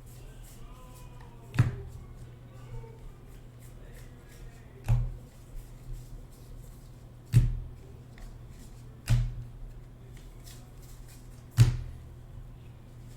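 Five sharp thuds on a desk, a few seconds apart, as packs and cards are handled and set down during a card break, over a steady low hum.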